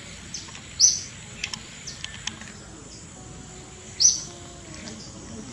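A bird calling: a short, sharp, high chirp, given twice about three seconds apart, over a thin steady high whine and a few faint clicks.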